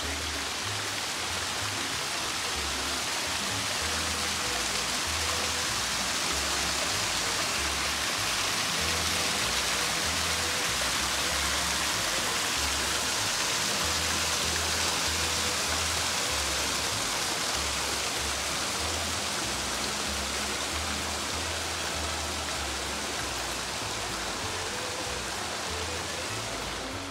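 Shallow creek water running and spilling over rock ledges, a steady rushing hiss, with background music carrying a low, stepping bass line.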